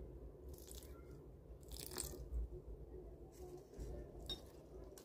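Water poured from a glass into a houseplant pot, trickling faintly onto dry potting soil, with a few short faint noises of handling.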